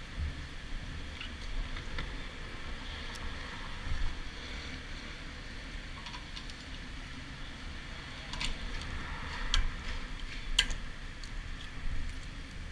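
A motorcycle fuel tank's filler cap being closed and locked with the ignition key: a scatter of short sharp metallic clicks, most of them in the second half, over low handling rumble.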